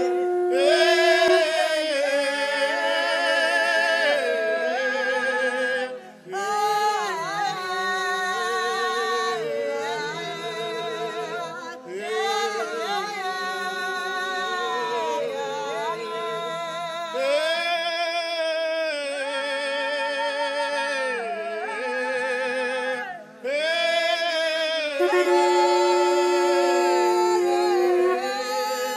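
Soundtrack of solo singing with heavy vibrato: long held notes that bend up and down, broken by short pauses between phrases, with a steady lower note held underneath at the start and again near the end.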